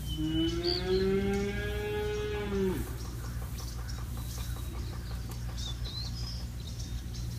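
A cow moos once, a long call of nearly three seconds that rises slightly and then drops off at the end.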